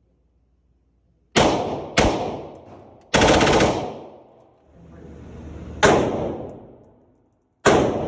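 Gunshots from a rented automatic rifle in a range lane: two single shots, a short rapid burst of fully automatic fire about three seconds in, then two more single shots, each ringing out with a long reverberant tail.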